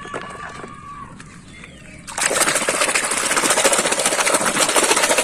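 Muddy water in a basin being churned and splashed hard by hand, loud and continuous from about two seconds in; before that, quieter knocks of plastic toys being handled in the basin.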